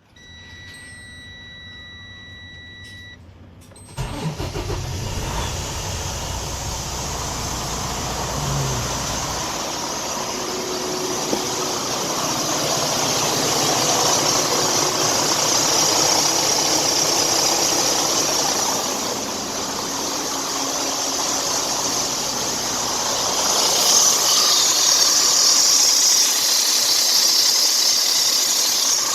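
Freightliner Cascadia's Detroit diesel engine starting about four seconds in and then running steadily. A steady high beep sounds for the first three seconds before it catches.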